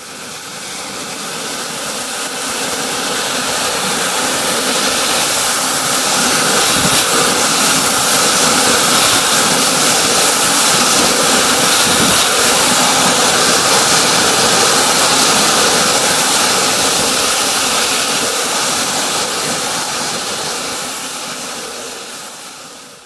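High-pressure water jet from a LaserJet sewer-jetter nozzle blasting inside a drain pipe: a loud, steady hissing rush of spray against the pipe walls. It swells over the first few seconds and fades away near the end.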